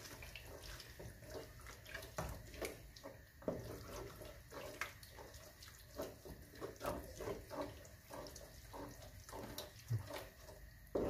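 Wooden spatula stirring raw beef mince through hot masala and oil in a metal pot: irregular wet scrapes and slaps against the pot, over a low frying sizzle as the mince starts to cook.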